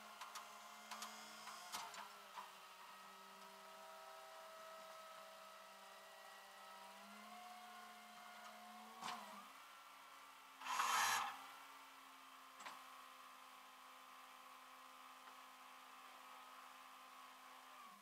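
Flatbed tow truck running, a steady drone that shifts pitch a few times. A few sharp clicks and clanks come near the start, and a short hiss comes about eleven seconds in.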